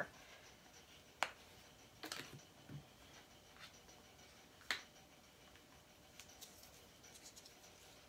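Near silence broken by a few light clicks and taps of plastic paint bottles being handled and set down, the sharpest about a second in and again near the middle.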